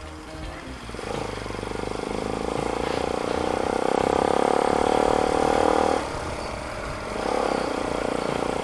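Motorcycle engine with a new muffler, pulling under throttle and getting steadily louder for several seconds, then easing off about six seconds in before pulling again.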